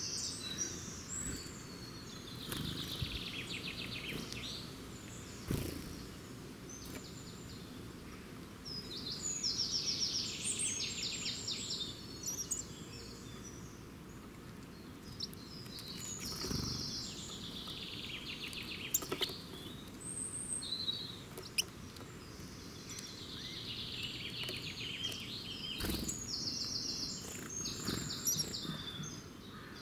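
Songbirds singing outdoors: short phrases of quick high trills that fall in pitch, repeated about every seven to eight seconds, over a faint steady background hiss, with a few brief knocks between phrases.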